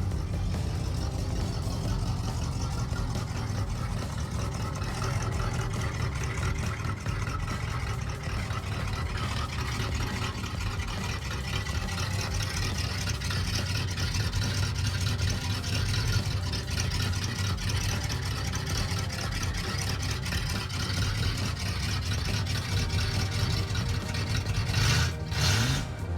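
A car engine running steadily, with a brief louder rush of noise near the end.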